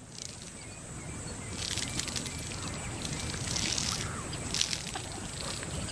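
Dry rustling and crackling of twigs and sand as a Cape cobra slides through brush, swelling in two brief stretches about two and four seconds in.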